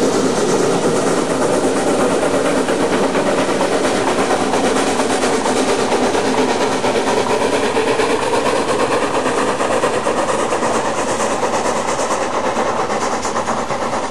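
Narrow-gauge 2-10-2 tank steam locomotive working hard with its train, its exhaust beating rapidly in a continuous chuffing mixed with wheel and rail noise, growing a little fainter near the end as it draws away.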